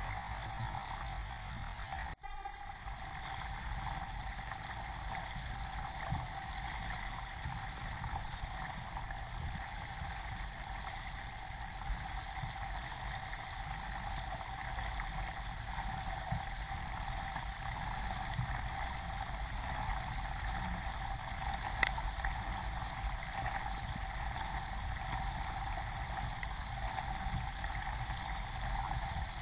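Steady wash of water rushing and splashing along a moving K1 racing kayak, picked up by a camera mounted on the hull at water level. A brief dropout comes about two seconds in, and a single sharp click about three-quarters of the way through.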